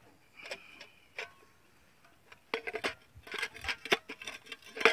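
Steel tiffin containers clinking and rattling as they are packed into a cloth bag. A couple of light clinks come first, then a quicker run of metallic clatter from about halfway.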